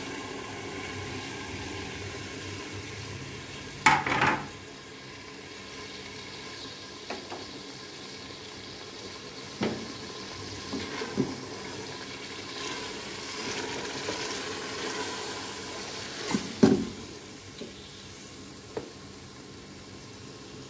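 Soaked split urad dal (daal mash) frying in oil in a metal pressure cooker pot, a steady sizzle, while it is stirred and scraped with a wooden spoon. Sharp knocks against the pot come a few times, loudest about four seconds in and again near the end.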